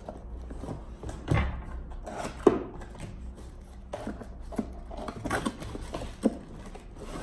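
A cardboard box being opened by hand: tape and flap peeled and pulled back, with rustling, scraping and scattered taps and knocks, the sharpest knock about two and a half seconds in.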